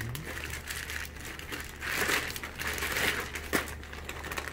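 Clear plastic fish-shipping bags and their plastic box liner crinkling and rustling as hands grip and pull them, loudest about two and three seconds in, with a sharp click about three and a half seconds in.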